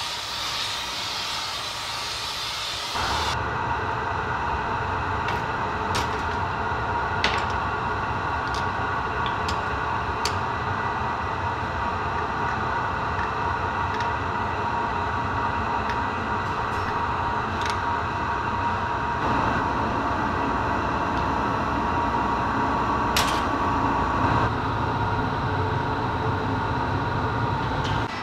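Bench torch flame hissing on hot glass for about three seconds. Then a steady workshop drone with a low rumble and a hum takes over, with a few sharp clicks of metal tools on the glass and pipe.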